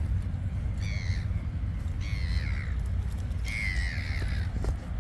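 A bird calling three times, about a second apart and then a longer gap, each call a short harsh caw falling in pitch, over a steady low rumble.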